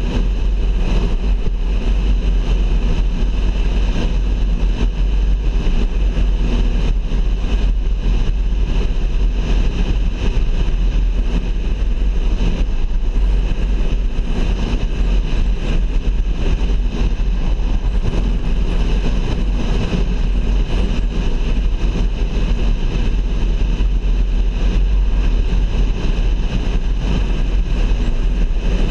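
A car driving at steady road speed: constant tyre and engine noise with a heavy, deep rumble.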